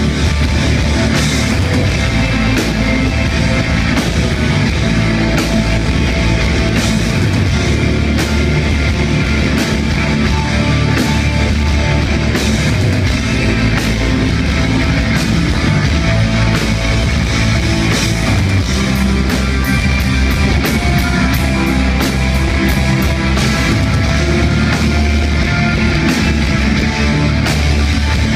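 Heavy metal band playing live at full volume: distorted electric guitars and bass over a drum kit with frequent cymbal hits.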